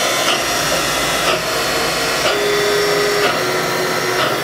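Haas VF-4 CNC vertical mill's 7,500 RPM spindle running at high speed, around 5,500 RPM, with its speed being slowly lowered: a steady whirring hiss with a thin high tone. A lower hum sounds briefly about two seconds in.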